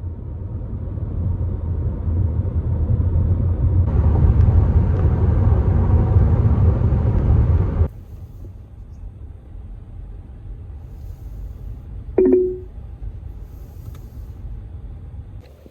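Low rumbling noise, like a vehicle or traffic, building and loud for about eight seconds, then cutting abruptly to a quieter rumble; a short pitched beep-like sound about twelve seconds in.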